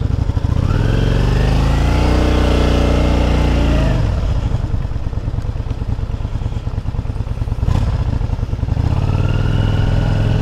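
Yamaha Drag Star 400's air-cooled V-twin engine pulling away under throttle: the revs rise about half a second in and hold, fall back at about four seconds to an uneven low-rev beat, then climb again near the end.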